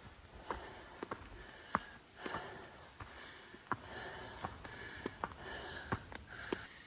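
A hiker breathing hard while climbing a steep trail, with footsteps and a scattering of short, sharp ticks, roughly two a second at uneven intervals.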